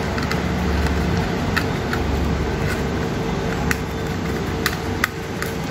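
Scattered small clicks and taps as a screwdriver and the metal heatsink parts are handled while taking the processor off a laptop motherboard, about eight sharp clicks at uneven intervals over a steady low hum.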